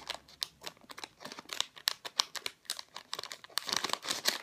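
Crinkly plastic packaging of a mystery blind-bag toy pack being handled and opened, giving a run of irregular sharp crackles.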